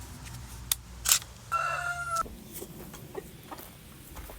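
A rooster gives one short, flat, held call about a second and a half in, with a couple of sharp clicks just before it and faint ticks after.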